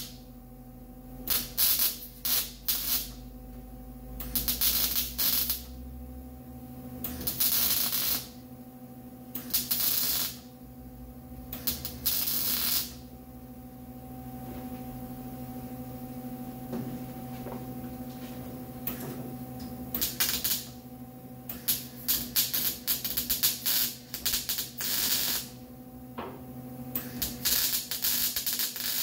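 MIG welder spot-welding a sheet-metal trunk gasket channel: short sizzling crackles, each lasting under a second, with a steady hum between them. The crackles stop for several seconds in the middle, then come quickly one after another near the end.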